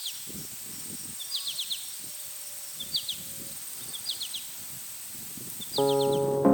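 A songbird repeating a short chirping phrase about five times, each a lead note followed by three or four quick chirps, over a steady outdoor background with a faint high whine. Piano music comes in near the end.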